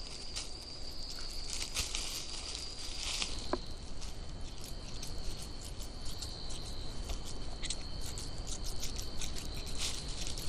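Insects, crickets or similar, trilling in a steady high continuous note, with scattered light ticks and rustles over it.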